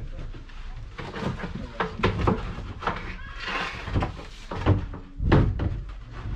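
Plywood sheets knocking, clattering and scraping against each other and the plywood box frame as they are lifted and laid in place, with a heavy thump a little past five seconds. A short call is heard around halfway through.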